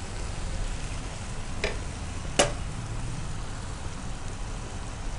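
Boneless chicken pieces in a red chilli masala sizzling steadily in a nonstick frying pan on a gas flame. Two short clicks come about a second and a half and two and a half seconds in, the second louder.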